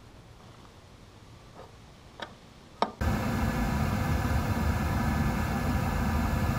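A few light ticks from hands working a fuel-oil line fitting, then, about three seconds in, the steady hum of a Riello oil burner's motor and fan running on a test firing, with several steady tones, while its Tiger Loop de-aerator clears the remaining air from the oil line.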